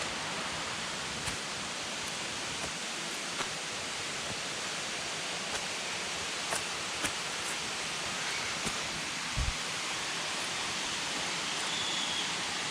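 Steady rushing of a nearby waterfall, an even hiss of falling water, with a few small clicks and a soft thump about nine seconds in.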